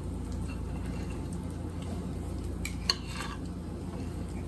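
Utensil clinking and scraping on a plate, with one sharp clink about three seconds in, over a steady low hum.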